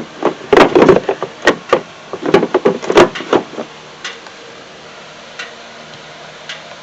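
Hard plastic knocks and clunks of the truck's air box housing being pressed and pulled loose, several in quick succession over the first few seconds. After that there is only a steady low hum with an occasional faint tick.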